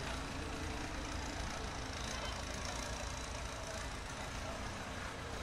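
Steady background noise with a distant engine running: a low, even rumble with no revving.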